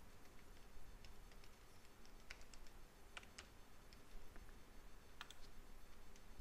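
Faint keystrokes on a computer keyboard: a few scattered clicks, in a cluster about two to three seconds in and again about five seconds in, over low room hiss.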